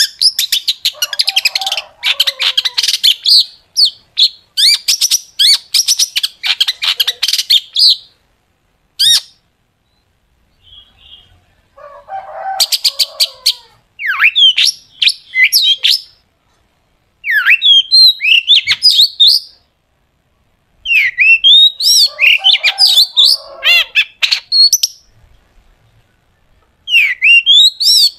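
Long-tailed shrike (cendet) singing loudly, packed with mimicked material: bouts of very rapid, sharp chattering notes fired off in series, then sharp slurred whistles sweeping up and down, with short pauses between phrases.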